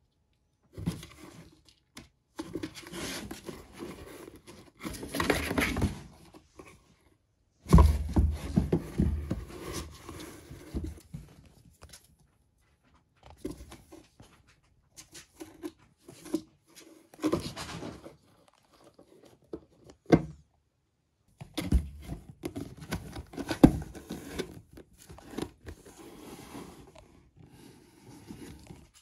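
Kittens scrabbling at and pushing through a hole in a cardboard box: cardboard scraping and rustling in several bursts, broken by short silences.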